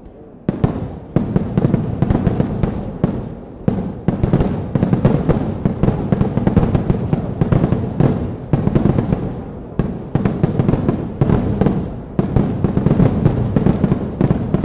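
Kerala temple fireworks (vedikattu) going off in a rapid, dense barrage of bangs, many a second, that starts about half a second in and runs on with only short lulls.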